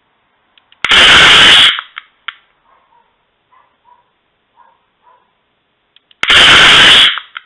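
Electronic fake turbo blow-off valve sound box, powered from a jump box, firing twice: two loud bursts of hiss, each just under a second long and about five seconds apart, loud enough to overload the recording. Its level measures 111 decibels.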